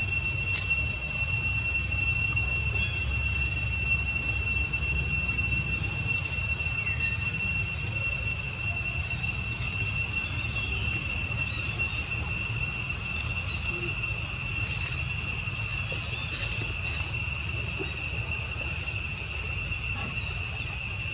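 Insects droning steadily on one unbroken high pitch with a fainter lower pitch beneath it, over a low rumble.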